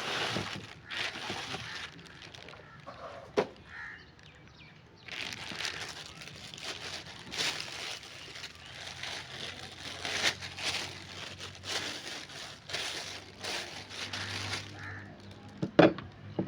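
Air gun packaging being handled and opened: bursts of rustling and crinkling with a couple of sharp knocks, one a few seconds in and one near the end.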